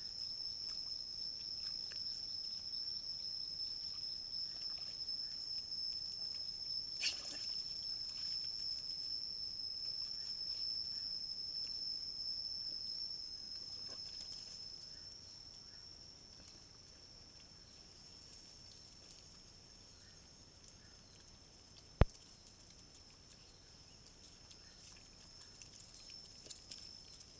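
A steady, high-pitched insect drone that fades away about halfway through, over faint grunting and snuffling of wild boar and piglets rooting in the soil. A short sharp sound comes about 7 seconds in, and a single sharp click near the end.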